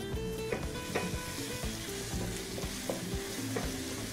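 Floured chicken livers and onion sizzling in a non-stick frying pan while a wooden spoon stirs them, with scattered knocks and scrapes of the spoon against the pan.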